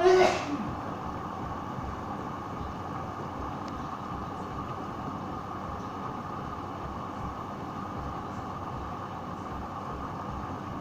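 Hoover washing machine running with a steady hum. A brief loud sound falling in pitch comes at the very start.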